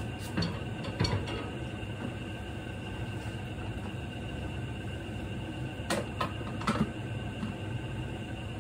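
Lidded pot simmering on a lit gas burner: a steady low hum with a faint steady whine above it, and a few light clicks, two or three about a second in and a small cluster around six to seven seconds in.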